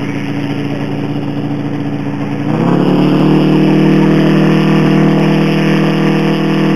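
Engine of a large radio-controlled Gee Bee Model R model running steadily on the ground. About two and a half seconds in it is throttled up to a higher, louder steady pitch and holds there.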